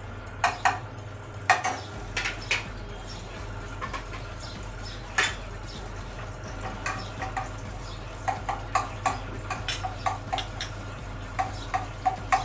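Steel spoon clinking and scraping against a kadhai while butter melts in hot oil: scattered light knocks, coming several to a second near the end, over a steady low hum.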